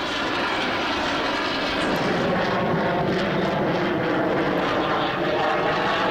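Military fighter jet flying past, its engine noise a steady, thunderous rush with a faint shifting whine.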